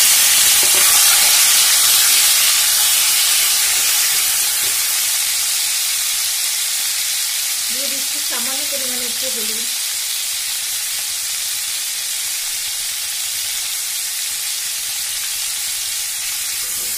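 Boiled baby potatoes frying in hot mustard oil in a kadai, a steady loud sizzle that slowly eases as the oil settles around them.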